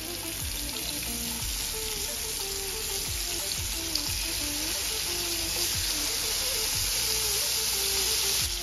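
Paneer blocks frying in hot oil and butter in a non-stick pan: a steady sizzle that grows a little louder towards the end as more pieces go in.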